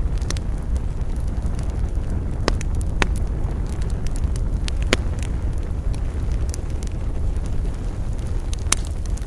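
Wood campfire crackling: scattered sharp pops, the loudest about five seconds in and again near the end, over a steady low rumble.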